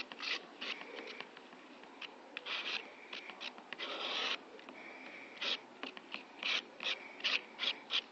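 A putty knife scraping and smearing body filler across cardboard while mixing it, in short irregular strokes, with one longer scrape about four seconds in.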